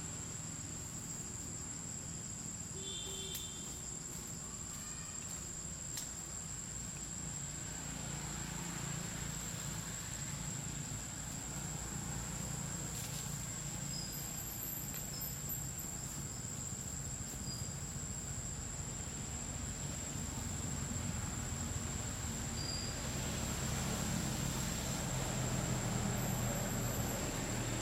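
Steady, unbroken high-pitched drone of insects in the forest, over a low rumble that grows louder near the end. A few faint short chirps break in now and then.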